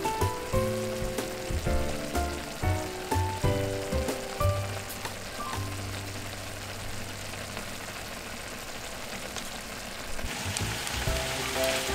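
Kimchi, bacon and spaghetti simmering in broth in a frying pan, a steady bubbling sizzle as the liquid reduces, growing louder near the end. Light background music plays over it.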